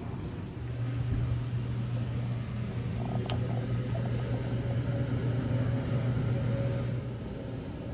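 Robotic coffee kiosk machinery running with a steady low hum, starting just after the beginning and stopping shortly before the end, with a single click about three seconds in.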